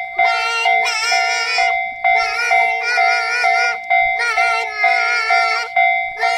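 Japanese railway level-crossing alarm ringing its repeating kan-kan tone, heard together with music carrying a synthesized singing voice.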